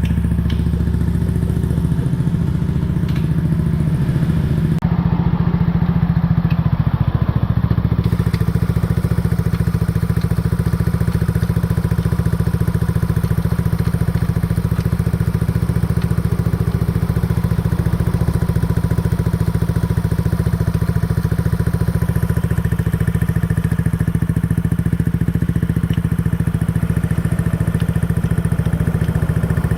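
Yamaha Cygnus X scooter's single-cylinder engine running steadily with an odd clattering, crackling knock mixed in, a strange noise that the owner suspects comes from a muffler close to breaking or from the transmission.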